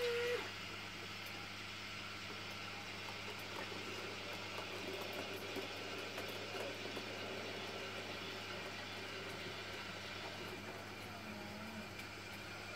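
N-scale model goods train rolling slowly along the track into the station, a faint steady running whir, with a steady low hum underneath.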